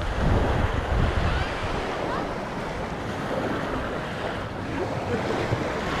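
Small waves washing up onto a sandy beach, with wind buffeting the microphone, heaviest in the first couple of seconds and easing after.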